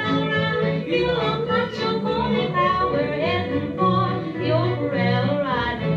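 Background music: a song with a solo singing voice over a repeating bass line.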